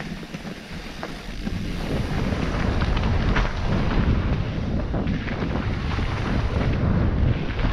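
Wind buffeting the microphone as a mountain bike rides fast down a rocky trail, with the tyres and frame knocking and rattling over rocks; it gets louder about two seconds in.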